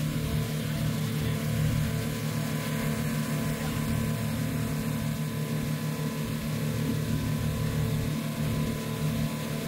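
Engine running at a steady speed, a continuous low drone with a faint regular pulse.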